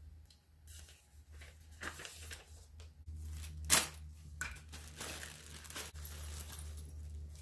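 Paper instruction sheets and plastic packaging being handled: rustling and crinkling, with small clicks and knocks of parts being set down, the sharpest about three and a half seconds in. A steady low hum comes in about three seconds in.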